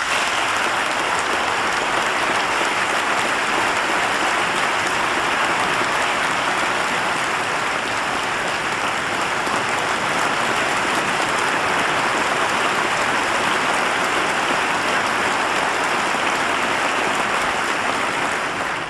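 Large audience applauding, a dense, even clapping that holds steady and dies down at the very end.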